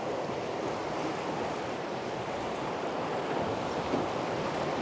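River whitewater rushing around a drift boat in the tail of a rapid, a steady rushing noise.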